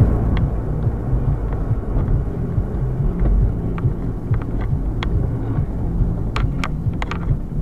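Steady low road and engine rumble inside a moving car, picked up by a dashcam, with a scattering of light clicks, several close together near the end.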